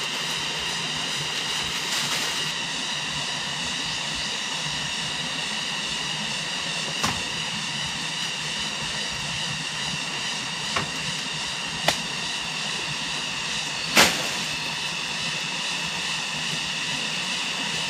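A steady high-pitched drone with four sharp knocks spread a few seconds apart over it, the last the loudest.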